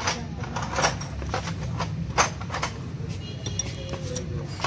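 Metal hand tools and engine parts clinking and knocking, a series of irregular sharp clinks with the loudest a little past two seconds in, over a steady low hum.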